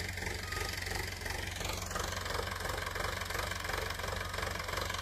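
Diesel tractor engine running steadily as it pulls a tillage implement across the field, giving a continuous low drone.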